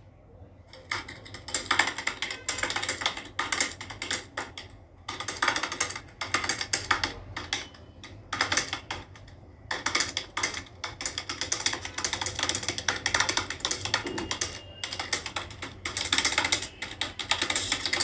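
Rapid typing on a computer keyboard during a typing speed test: fast runs of key clicks broken by short pauses.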